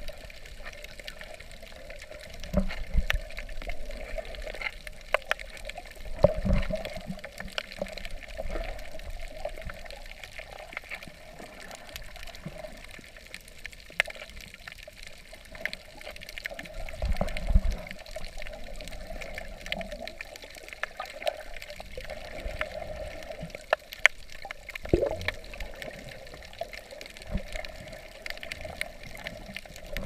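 Underwater water noise heard through a submerged camera: muffled sloshing and rushing water, with scattered sharp clicks and a few low thumps.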